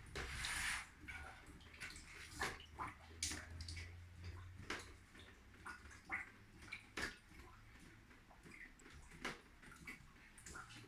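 Water dripping from a leaking ceiling, single drops landing at irregular intervals, after a short splashing burst at the start.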